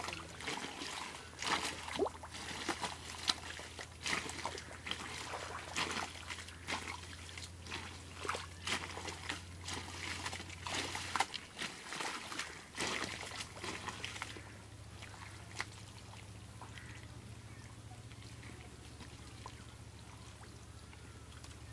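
Hands digging and groping through soft wet mud and shallow muddy water, with repeated squelches, sucks and small splashes. The squelching grows sparse and quieter about two-thirds of the way in.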